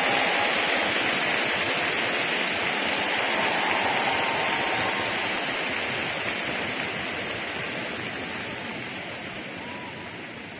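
Large arena crowd applauding, slowly dying away.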